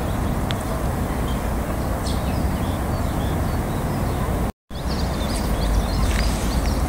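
Steady low outdoor rumble with faint, short high bird chirps over it, the chirps growing busier after a brief dropout about two-thirds of the way through.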